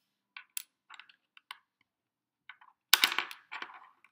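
Plastic Lego pieces clicking and tapping as they are handled and pressed together, with a louder clatter of clicks about three seconds in.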